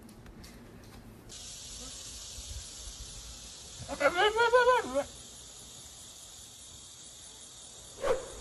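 A goat bleats once, a wavering call about a second long, over a steady high hiss.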